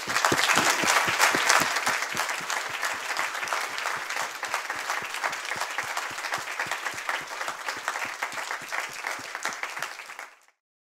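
Audience applauding in a lecture hall, the clapping easing slightly over time and stopping abruptly about ten seconds in.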